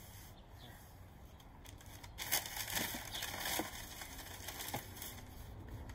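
Packing paper crumpling and rustling as a plastic planter tier is pulled out of its cardboard box, starting about two seconds in, with a few light knocks.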